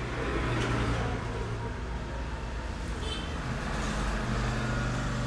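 Motor vehicle engine running nearby, a steady low hum, amid street traffic noise.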